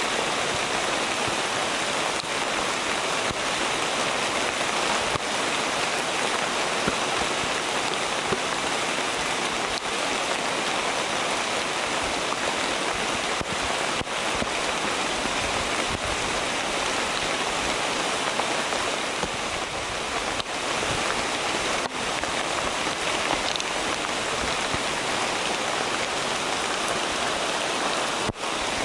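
Steady rain falling on rainforest foliage, an even hiss with no pauses.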